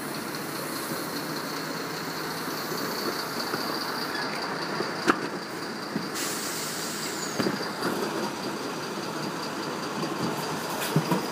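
Refuse lorry machinery running steadily with a thin high whine held throughout, broken by a few sharp metallic knocks, the loudest about five seconds in and more near the end.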